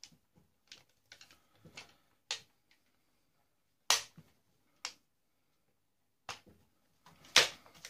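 A string of irregular sharp clicks and taps of hard plastic and metal parts and tools being handled while a steam iron is dismantled. The loudest come about four seconds in and again near the end.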